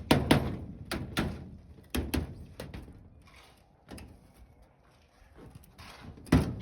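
A handful of sharp knocks in the first few seconds, irregularly spaced, then fainter knocking and scraping.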